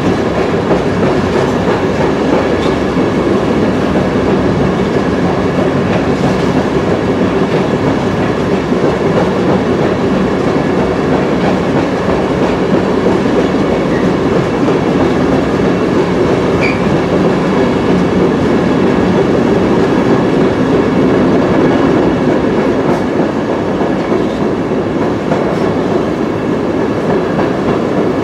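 Amtrak passenger train running through a rail tunnel: the wheels on the rails make a loud, steady rumble that fills the tunnel.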